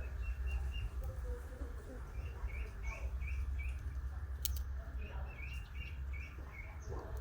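A bird chirping in short repeated notes at one pitch, at times about three a second, over a steady low rumble, with one sharp click about halfway through.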